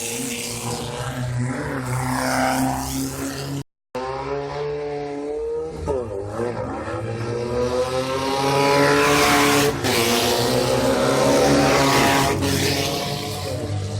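Off-road race car engines running at high revs, the pitch rising and falling as they accelerate and shift. The sound cuts out completely for a moment a little under four seconds in.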